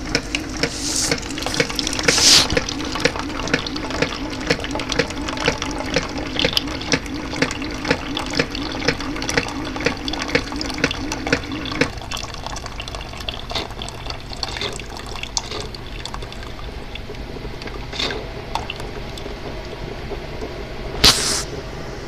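Keurig 2.0 coffee maker dispensing hot water into a plastic measuring cup: the pump hums with a regular clicking, about two clicks a second, over the pouring water. The pump hum stops about halfway through and the water trickles on. There is a sharp knock near the end.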